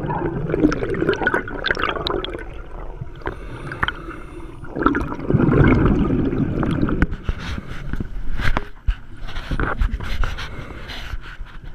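Scuba regulator exhaust: a diver's exhaled air bubbling out underwater, one long burst at the start and another about five seconds in, following a diver's breathing cycle. Several sharp clicks in the last few seconds.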